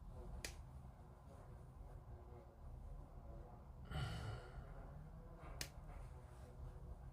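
Quiet bench work on small plastic model-kit parts: two sharp clicks, one just after the start and one about five and a half seconds in, and a short sigh-like exhale about four seconds in, over a faint low hum.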